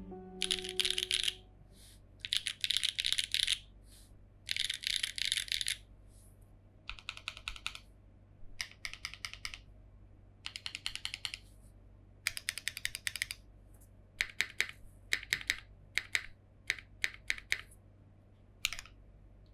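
Cherry B Neo87 mechanical keyboard with Jieum V2 switches, GMK Oblivion keycaps and no foam, being typed on in quick runs of keystrokes separated by short pauses. In the last few seconds the presses turn into slower, separate single keystrokes.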